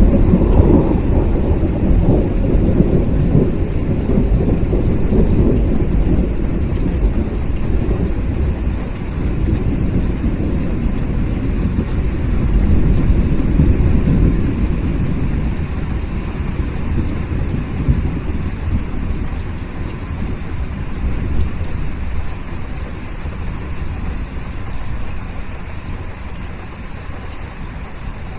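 Steady rain with a long, low roll of thunder at the start that slowly dies away over the first half.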